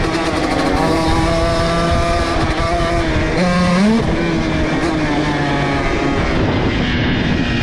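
125cc two-stroke dirt bike engine running hard at high revs. About halfway through, the engine note drops briefly and climbs quickly back up, then holds steady again.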